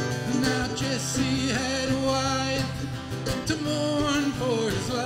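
Acoustic guitar strumming and mandolin playing a folk ballad live, with a man's voice holding wavering sung notes over them in places.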